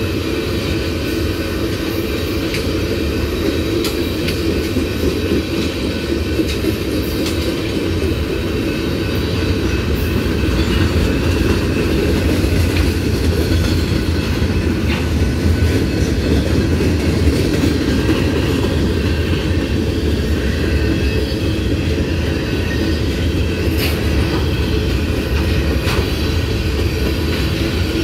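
Freight cars of a manifest train, mostly tank cars with a covered hopper, rolling steadily past, their steel wheels rumbling on the rails with occasional sharp clicks at rail joints.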